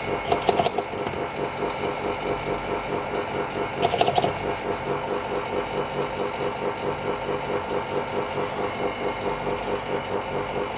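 Small machine pump running steadily with a fast, even pulsing. Two brief sharp clicks sound over it, one just after the start and one about four seconds in.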